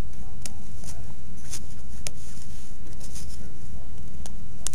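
Bone folder rubbed over clear book tape on a paperback cover, a few short, irregular scrapes as it smooths out bubbles and creases. Under them runs a steady low hum.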